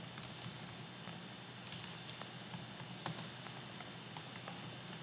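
Faint typing on a computer keyboard: short runs of keystroke clicks at an irregular pace, the busiest a little under two seconds in and again around three seconds.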